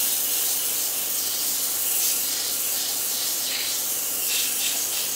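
Sandpaper held by hand against a wooden sphere spinning on a wood lathe, a steady hiss as it sands off the sphere's high spots.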